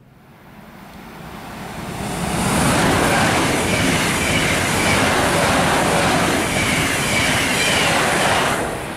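A Lastochka (Siemens Desiro Rus) electric multiple unit passing close at high speed, with the rush of wheels on rails and air. It grows louder over the first two seconds or so, holds steady with a faint high whine, then cuts off just before the end.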